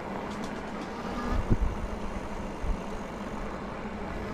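Engwe Engine Pro e-bike riding along a tarmac path: steady rolling noise with a faint low hum. A low thump comes about a second and a half in, and a smaller one near three seconds.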